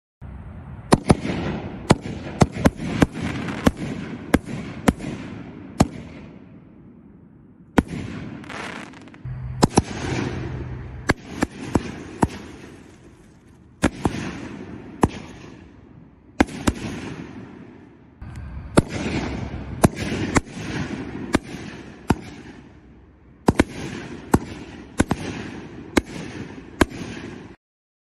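Aerial firework shells launching and bursting: a string of sharp bangs over a rushing hiss, in about five volleys with short lulls between.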